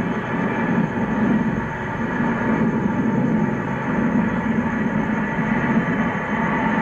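Jet engines of a Boeing 747-400 taxiing: a steady whine over a low rumble.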